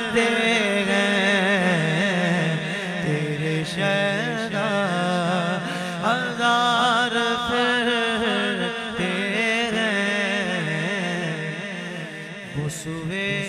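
Naat reciter singing unaccompanied-style devotional verse in long, ornamented melismatic lines, with a steady low drone sustained underneath.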